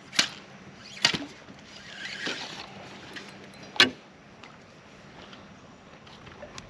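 Sharp clacks and knocks of a spinning rod and reel being handled aboard a plastic fishing kayak: three hard knocks, one at the start, one about a second in and one just before four seconds. A short rushing hiss comes between the second and third.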